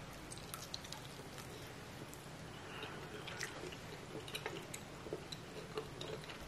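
A person biting into and chewing a sauced baked chicken wing: faint, wet chewing with scattered small clicks.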